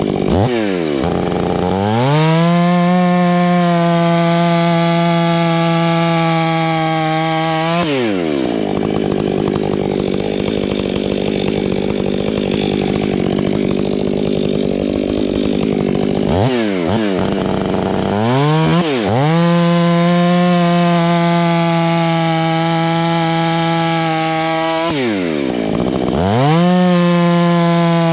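Stihl 500i two-stroke chainsaw with an 8-pin sprocket running at high revs. It is let off and revved back up about four times, and for several seconds in the middle it bogs down lower and rougher while cutting through wood.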